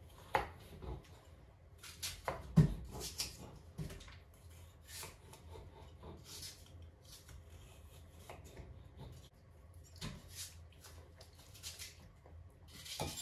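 Irregular clicks, knocks and rustles of food and kitchen utensils being handled around a pot, with one louder knock about two and a half seconds in.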